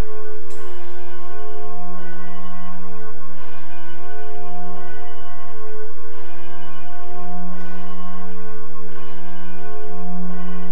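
Church bells ringing, a new stroke about every one to two seconds, the tones ringing on and overlapping into a sustained chord.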